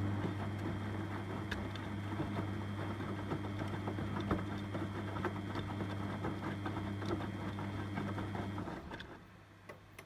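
Beko front-loading washing machine tumbling a wet load of towels on a hot cottons wash: a steady low motor hum with the slosh and patter of water and fabric in the drum. The drum stops a little before the end and the sound drops to a faint background.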